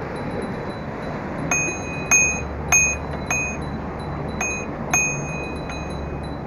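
Bicycle bell rung in a quick series of about seven bright dings, over the steady rush of riding.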